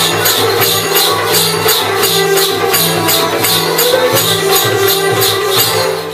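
Shakti-Tura folk dance music: a steady, brisk beat of jingling metal percussion, about four strokes a second, over sustained low instrumental tones.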